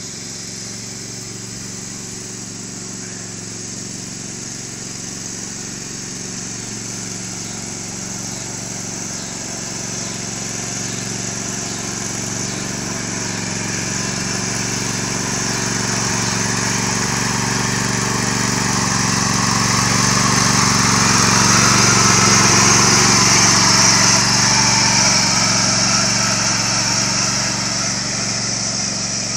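Red riding lawn mower's engine running steadily as it drives across the lawn. It grows slowly louder, peaking about three-quarters of the way through, then eases off a little.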